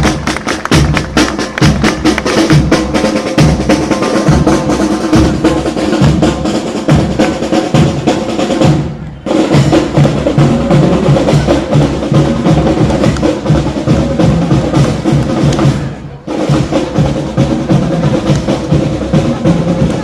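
Youth marching band playing: rapid snare-drum strokes and bass-drum beats over held melodic notes. The music breaks off briefly twice, about 9 and 16 seconds in.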